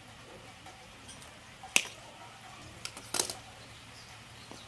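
A few sharp metallic clicks and clinks from a pocket chainsaw's steel chain being handled with pliers. There is one loud click about two seconds in and a short cluster of clinks about a second later.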